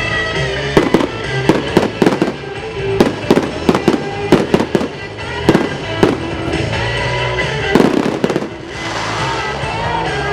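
Fireworks shells bursting in a rapid series of sharp bangs over loud music, with the bangs stopping near the end and giving way to a hiss.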